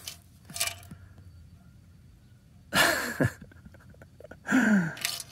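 A man's breathy exhale about halfway through and a short sighing "ah" that falls in pitch near the end, with a few faint ticks and handling sounds from the tin cans in between.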